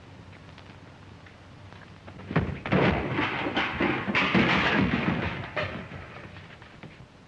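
A sudden burst of loud thuds and crashing that starts about two seconds in, lasts about four seconds and then dies away.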